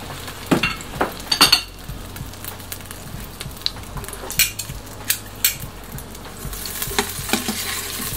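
Butter melting and sizzling in hot olive oil in an Instant Pot's stainless steel inner pot on the sauté setting. Scattered sharp clinks of metal tongs against the pot break through the sizzle.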